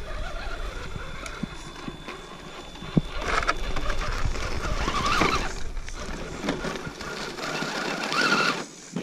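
Electric motor and gearbox of an Axial SCX10 RC rock crawler whining, rising and falling in pitch with the throttle, as its tyres crunch over gravel and rocks while it climbs. It gets louder about three seconds in and cuts off shortly before the end.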